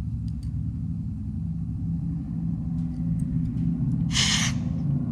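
Aircraft spark plugs being cleaned in a compressed-air spark plug cleaner: a steady low rumble and hum throughout, with a short hiss of air about four seconds in.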